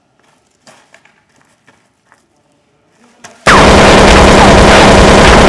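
Faint scattered scuffs and clicks, then, about three and a half seconds in, a sudden, very loud, distorted wall of explosion-like noise with several falling whistles breaks in and runs on.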